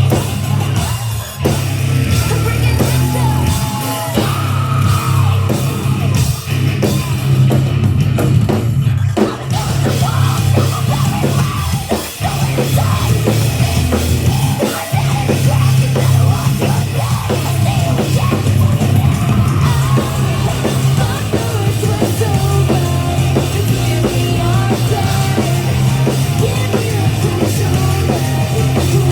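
Live heavy rock band playing loud, with a pounding drum kit, a strong steady bass underneath and yelled vocals.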